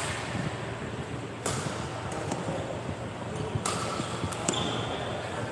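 Badminton hall background noise with a few sharp smacks, about a second and a half in and again near four seconds, the loudest near the second mark.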